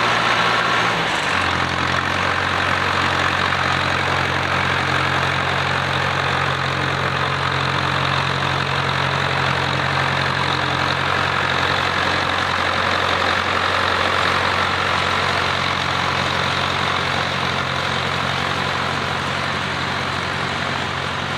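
Zetor Crystal 8011 tractor's diesel engine running steadily; about a second in its note drops to a lower pitch and then holds.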